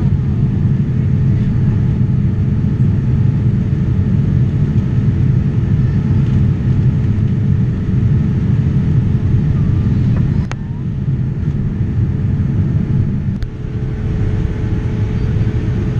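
Cabin noise inside a Boeing 787 Dreamliner in flight: a steady low rumble of engines and airflow with a faint steady hum. Two brief clicks come about ten and thirteen seconds in, each followed by a short dip in the level.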